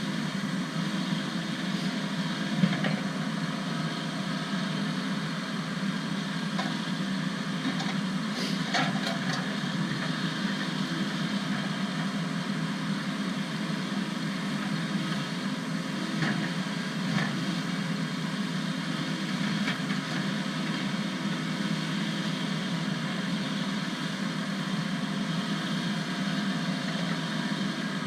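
An engine running steadily at an even idle-like pace, with a few faint clicks and knocks, the clearest a few seconds in and around a third of the way through.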